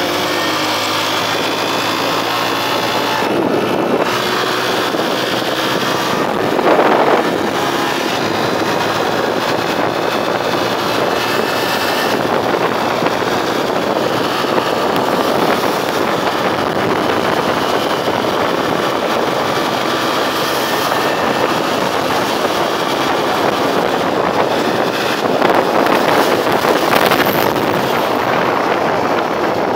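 Motorcycle riding at road speed: the engine running under a steady rush of wind over the microphone. It swells louder briefly about seven seconds in and again near the end.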